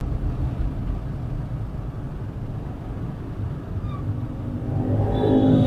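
Dashcam recording of traffic rumble inside a car in slow, crowded traffic, with a brief faint squeak about four seconds in. A deeper engine note grows louder near the end.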